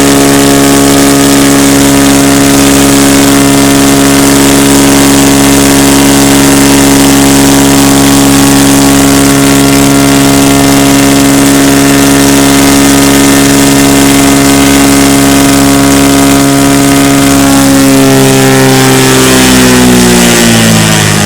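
Cessna U206F's freshly overhauled Continental IO-520 six-cylinder engine and propeller running steadily at full throttle during a ground run-up. Near the end the revs fall away as the throttle comes back.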